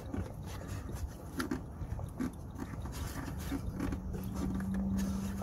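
Faint clicks and rubbing of a fuel pipe connector being worked off a car's inline fuel filter by hand. A steady low electric hum starts about three seconds in.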